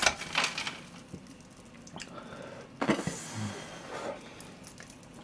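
Scattered crackles and soft squishes of a large, crisp-breaded pork cutlet being picked up by hand and eaten, in short irregular bursts over low room noise.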